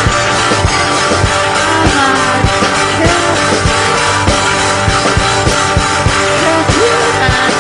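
Rock music with distorted electric guitar and a driving drum kit beat, a punk-style track.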